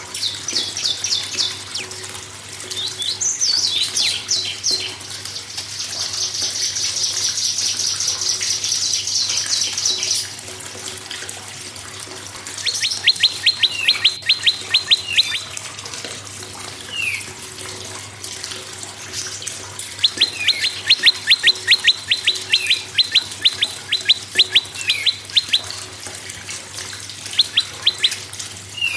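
Prenjak songbirds calling: bursts of rapid, sharp repeated notes, a long fast high trill a few seconds in, and several later runs of quick repeated chipping notes.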